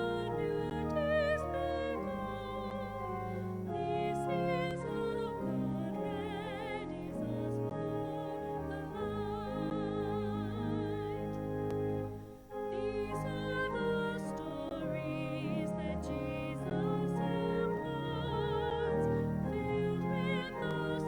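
Church music: a solo melody with strong vibrato, in a classical singing style, over sustained low accompaniment, with a short break about twelve seconds in.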